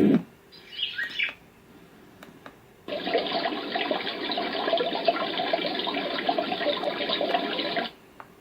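Dreamegg D3 white noise machine switching between its sound programmes. A deep rushing noise cuts off at the start, a brief birdsong chirp follows, then a running-water sound plays for about five seconds and stops abruptly.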